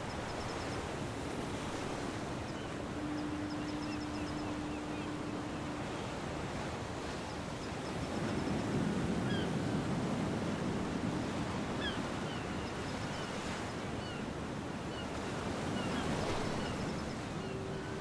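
Ocean surf washing onto a beach as a steady hiss, swelling about eight seconds in and again near the end. Faint high chirps run through it, and a steady low hum is heard for a few seconds early on and again at the very end.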